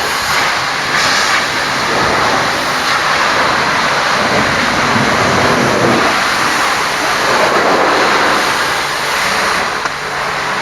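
High-pressure washer jet spraying water onto a truck: a loud, steady hiss of rushing water that swells and eases as the jet moves.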